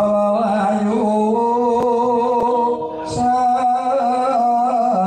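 Javanese vocal singing in long, held, wavering notes over a steady low sustained tone from the gamelan ensemble accompanying a wayang kulit shadow-puppet play.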